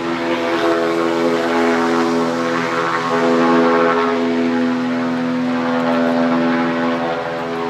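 Blimp's propeller engines droning steadily, a constant pitched hum that swells slightly about three and a half seconds in.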